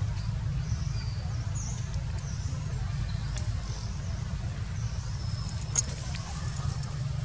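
Low, fluttering rumble of wind buffeting the microphone, with faint high chirps and a single sharp click about six seconds in.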